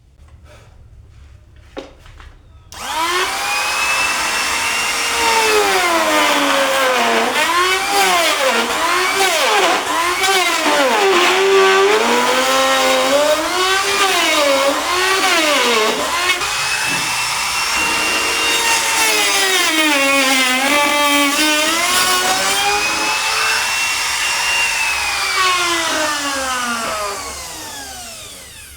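Electric power tool working wood. It starts abruptly about three seconds in, its motor whine dipping and recovering again and again as it takes up load, then winds down in pitch near the end.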